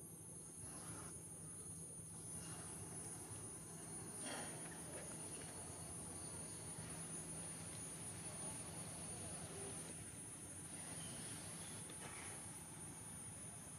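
Insects droning in the forest: a faint, steady, high-pitched buzz that holds unbroken throughout.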